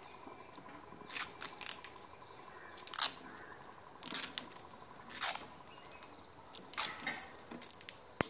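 Adhesive tape being pulled off a roll in a series of short, sharp rips about a second apart, as it is wound around a firework rocket to fix it to a wire. Insects chirp steadily in the background.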